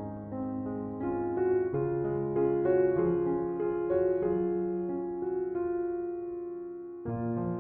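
Slow, gentle piano music of held notes and chords that fade away slowly, with a new chord coming in about seven seconds in.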